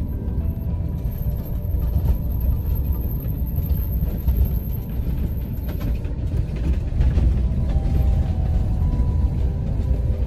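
Diesel camping-car driving slowly along a town road: a steady low rumble of engine and tyre noise.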